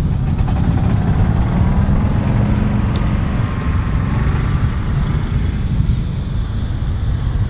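Small engines of walk-behind greens mowers running, under a heavy, even low rumble.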